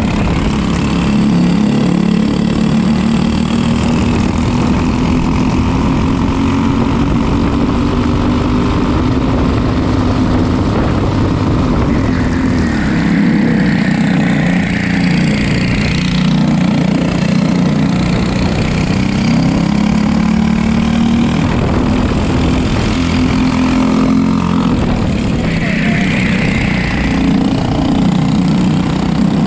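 Racing kart engine, a Briggs & Stratton LO206 four-stroke, running hard on track. Its pitch climbs for a few seconds at a time and then drops back, over and over, as the kart accelerates and slows.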